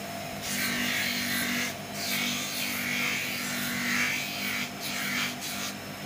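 Bench grinder running with a steady motor hum while a rubber inner tube is pressed against its spinning abrasive wheel, making a rasping scuff in several stretches with short breaks. The rubber around the puncture is being roughened to take a patch.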